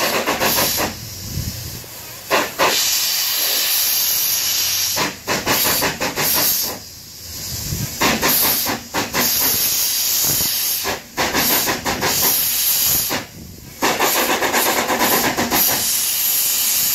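Single Fairlie steam locomotive blowing steam from its cylinder drain cocks in long loud hisses, broken by short pauses, as it strains to get a heavy slate train moving.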